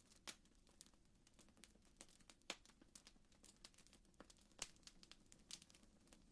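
Faint crackling fire ambience: scattered irregular pops and crackles over a low hum.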